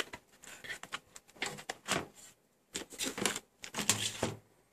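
Papers and plastic sleeves rustling and the plastic tool case clattering as they are handled. The sound comes in irregular bursts with small clicks.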